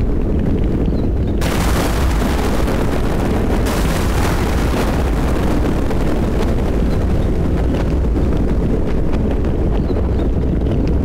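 Thunderstorm with rain: a steady deep rumble throughout. About a second and a half in, a sudden crackling hiss of thunder comes in, strongest for about two seconds and then slowly fading.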